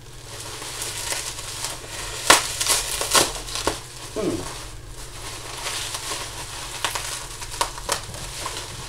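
Plastic bubble wrap crinkling and rustling as it is handled and pulled open, with a scatter of sharp crackles, the loudest about two seconds in.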